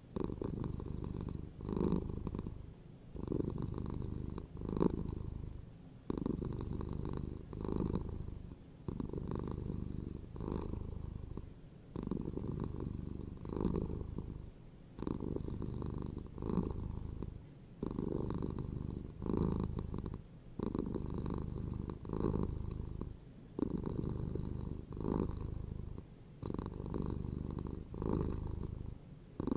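A domestic cat purring steadily, the purr swelling and easing in a regular rhythm about once every second and a half as the cat breathes in and out.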